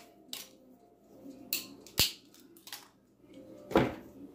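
Dry oven-ready lasagna noodles being snapped into pieces by hand: a handful of short, sharp cracks spaced a second or so apart, the loudest near the end.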